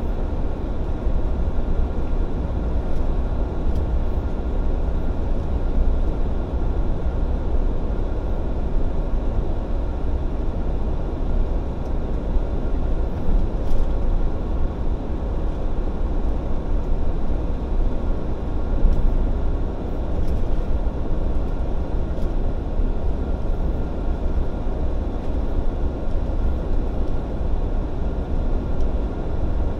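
Heavy truck driving at a steady pace: a continuous deep engine and road rumble that holds level, with no rise or fall in pitch.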